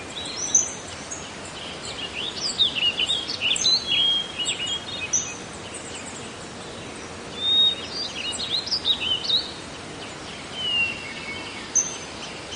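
Songbirds chirping and singing over a steady background hiss, with two busy spells of quick calls, about two seconds in and again around the middle.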